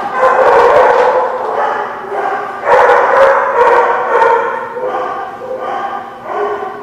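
Dogs vocalizing while play-fighting: repeated barks and yips mixed with some drawn-out, howl-like cries.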